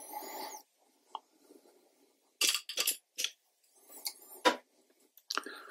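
A watercolour brush scratching softly across paper for the first half second. Then come about five short, sharp knocks and swishes of painting tools being handled, the loudest a little over four seconds in.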